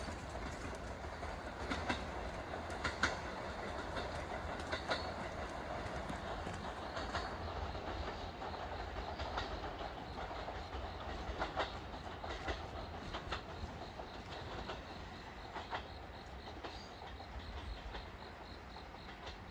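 Limited express train running past, its wheels clacking over rail joints in irregular clicks above a steady rumble, the sound slowly fading as the train draws away.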